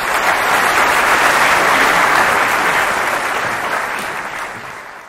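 Large audience applauding, a dense, steady clapping that starts to die down near the end.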